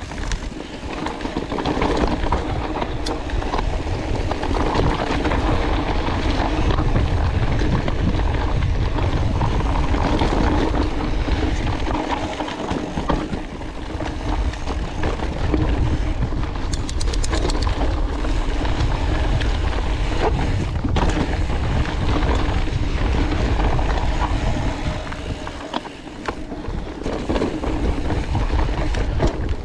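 Wind rushing over the microphone of a mountain biker's camera while riding a dirt singletrack, with the tyres rolling over the dirt beneath; the noise eases off briefly a few seconds before the end.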